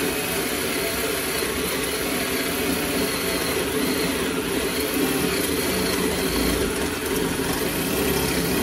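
Power drill running steadily under load, boring through the front-end metal plate. The bit is hard to get started and wants to walk on the metal.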